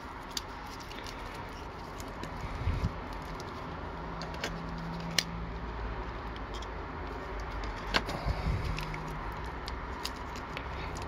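Plastic shrink-wrap on a boxed card set crinkling and rustling as fingers pick at it and a utility knife scrapes along it, with a few sharp clicks, one about five seconds in and another about eight seconds in.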